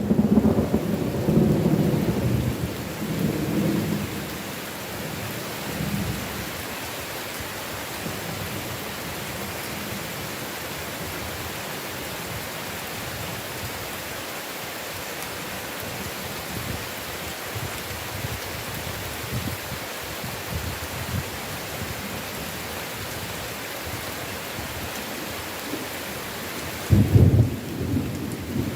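Heavy rain falling steadily in a thunderstorm. A rumble of thunder dies away over the first few seconds, and a sharp peal of thunder breaks near the end.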